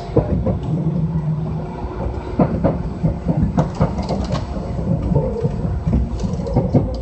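Running sound inside a Kintetsu Minami-Osaka Line local train: a steady low rumble of wheels on the rails, with irregular clicks and knocks from rail joints and the car throughout.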